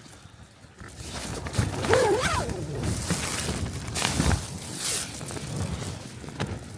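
Strong wind gusts buffeting a tent, the fabric flapping and rattling. The gusts build about a second in, with a brief wavering whine about two seconds in.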